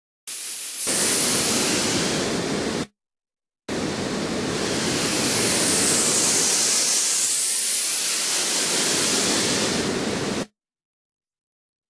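Synthesized noise sweep: filtered hiss in two abruptly cut bursts, a short one of about two and a half seconds, then a longer one of about seven seconds. In the longer burst the tone of the hiss glides down and back up as the filter sweeps.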